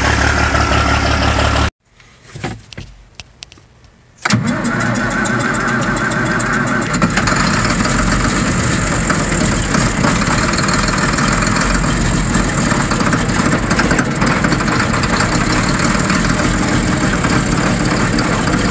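Skid steer loader's diesel engine cold-starting in winter: after a short quiet stretch with a brief crank, it catches suddenly about four seconds in and settles into a steady run. A steady engine sound before it cuts off abruptly under two seconds in.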